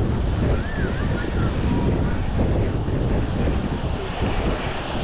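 Wind buffeting the microphone, a steady low rumble, over the wash of waves on a sandy beach, with faint distant voices of beachgoers.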